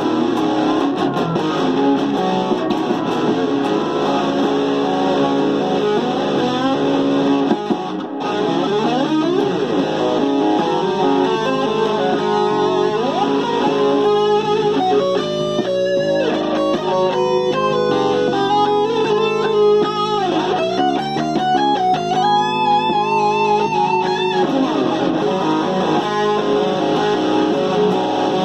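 Fender Telecaster electric guitar playing a rock rhythm part, dense chords and riffs, turning in the second half to held single notes with a wavering pitch.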